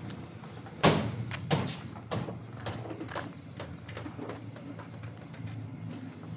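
Metal clicks and knocks from a crop-duster's cockpit door and fittings as the pilot climbs out onto the step. One loud knock about a second in is followed by smaller ones about twice a second that fade away, over a low steady hum.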